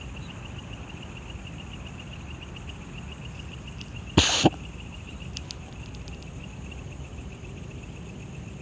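Crickets chirping at night in a steady pulsing trill, over a low rumble of background noise. About four seconds in, a short, loud burst of noise cuts through.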